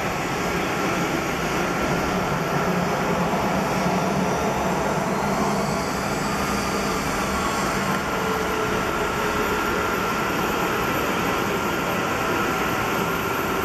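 Airbus A320's jet engines running at idle thrust as the airliner taxis in, a steady rush with a high whine and a low hum.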